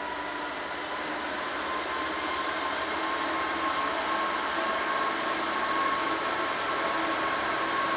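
Approaching diesel locomotive: a steady engine drone carrying a few held tones, growing slowly louder as it nears.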